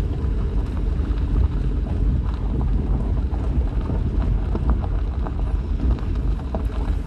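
Vehicle interior noise on a rough dirt road: a steady low rumble from the tires and suspension with frequent small rattles and knocks as the rig jolts over the bumps.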